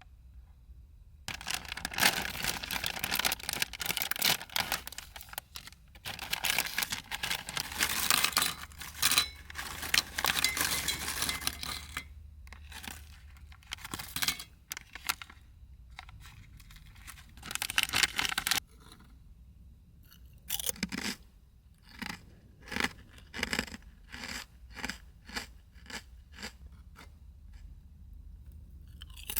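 Crackling, tearing handling noise, like a packet or wrapper being opened. In the last third it gives way to a steady series of short crunching strokes, about two a second.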